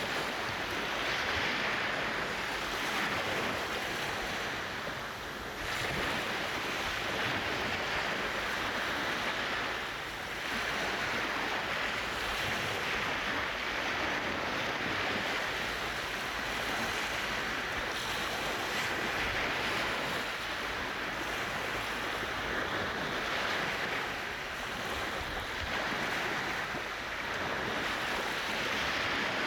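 Sea waves washing onto a sandy beach at the water's edge: a continuous wash of surf with a few brief lulls between surges.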